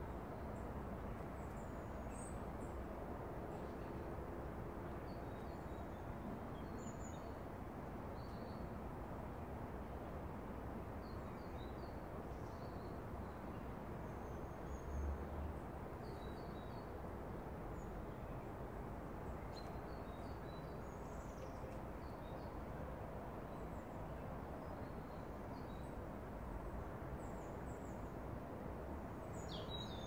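Small birds chirping and twittering in short, faint calls, scattered throughout, over a steady background hiss of outdoor ambience. There is one brief low thump about halfway through.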